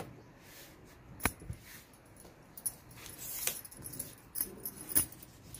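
Tailoring scissors cutting cloth: a few sharp metallic snips, with a longer cut building into one about three and a half seconds in.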